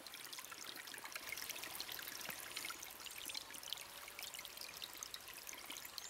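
Faint trickle of a shallow stream running over stones, with fine crackling throughout.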